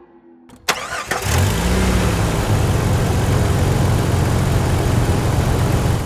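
Car engine starting, used as a sound effect: a sharp click about half a second in, then the engine catches with a quick rise in revs and settles into a steady idle.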